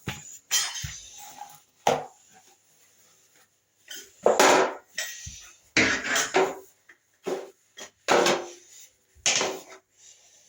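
Broom sweeping a floor in separate short strokes, each a brief swish.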